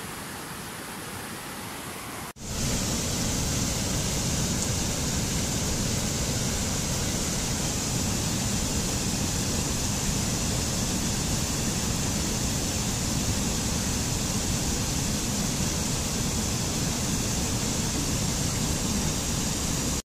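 Steady rush of fast-flowing river water. A little over two seconds in it drops out for an instant and comes back louder and fuller: water cascading over rocks in a mountain stream.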